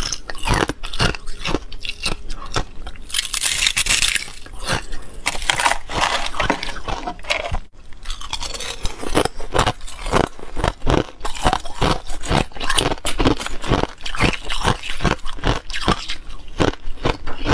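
Ice being bitten and crunched between the teeth close to the microphone: a dense run of cracks and crunches from a clear ice shell and spoonfuls of its frosty crystals, with a brief break about eight seconds in.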